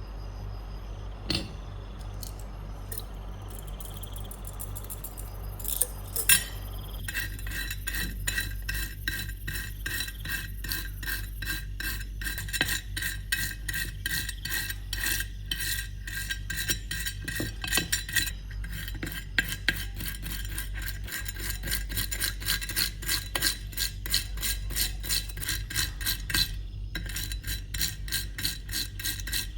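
Hand-filing a metal knife blade: rhythmic scraping strokes, about three a second, begin about seven seconds in over a steady low hum, after a few sharp metal clicks.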